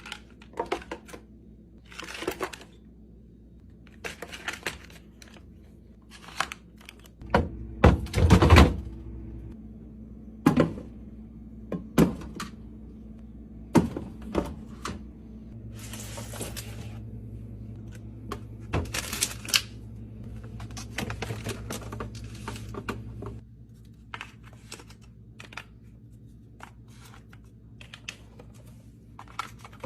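Groceries and containers being handled and set into a fridge: a string of separate knocks, clacks and clicks with short rustles of packaging, loudest in a cluster of knocks about eight seconds in.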